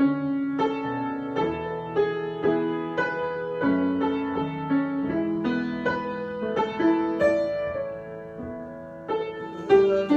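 Piano improvisation: a melody of single struck notes over ringing chords, a new note about every half second, with a louder chord near the end.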